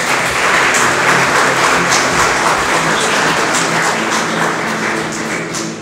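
Audience applauding, with background music playing underneath.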